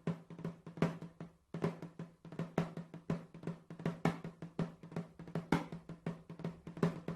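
Percussion ensemble playing drums: a quick, uneven pattern of sharp strikes over a steady low ring, with a short break about a second and a half in.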